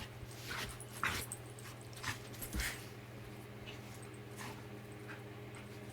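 A dog makes a handful of short, sharp sounds during play, mostly in the first half, with fainter ones later, over a steady low hum.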